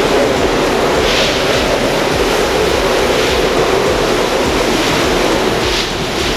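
Typhoon storm: violent wind and heavy rain, a loud steady rushing noise with hissing surges about three times.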